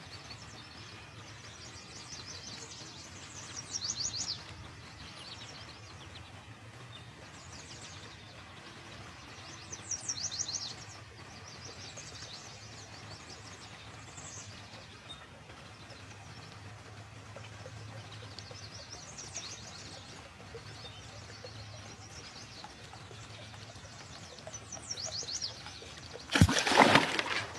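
Songbirds trilling now and then over quiet river ambience. Near the end comes a loud splash about a second long: a pike striking the topwater bird lure.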